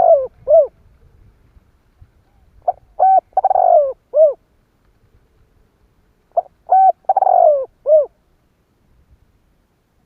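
Spotted dove cooing: two full song phrases a few seconds apart, each a short coo, a paired coo, a longer falling coo and a final short coo. The tail of another phrase comes at the very start.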